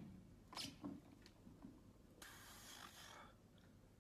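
A lifter breathing out hard as he drives up out of a barbell back squat: a short noisy puff of breath about two seconds in, after a few faint clicks.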